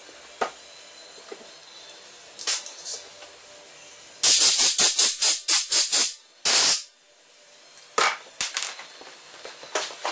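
A rapid run of about eight short, loud hissing blasts from a pressurized jet, then one slightly longer blast. A few light knocks of parts and tools being handled come before and after.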